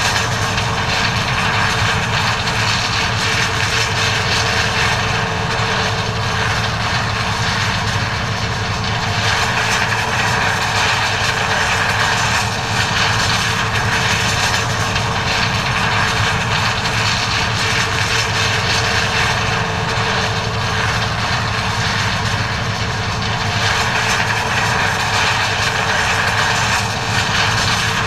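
John Deere 9400 combine running steadily under load while harvesting corn: a constant diesel engine drone with the rushing hum of the threshing and separating machinery.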